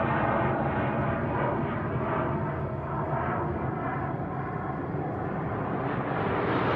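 Jet aircraft roaring overhead, a steady rumble that eases a little midway and swells again near the end.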